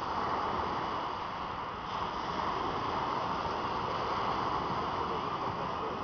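Small Black Sea waves breaking and washing over a pebble beach: a steady surf noise.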